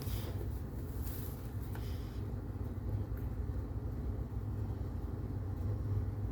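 Steady low background rumble, with faint rustling and a small click in the first two seconds.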